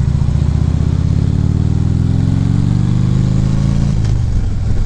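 Harley-Davidson Ultra Classic Limited's V-twin engine under acceleration while riding, its note climbing steadily for about three seconds. It falls off abruptly about four seconds in, an upshift to the next gear.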